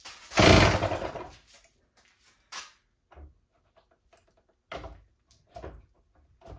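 A small 3D-printed two-stroke engine being flicked over by hand at its flywheel, trying to fire on starter fluid: one loud, noisy burst lasting about a second near the start, then four short sharp bursts as the flywheel is spun again.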